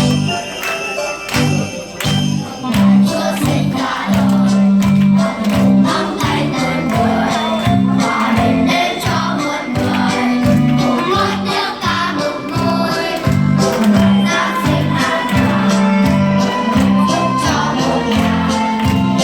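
Christmas song with jingle bells ringing over a steady bass beat.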